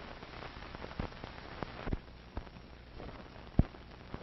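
Surface noise of an old film soundtrack: a steady hiss with a faint low hum and scattered clicks and pops, the loudest pop about three and a half seconds in.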